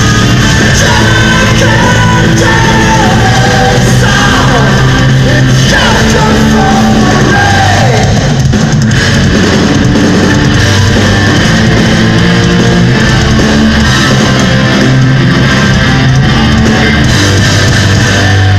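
Power metal band playing live at full volume: electric guitars, bass and drums under sung vocals with long held notes.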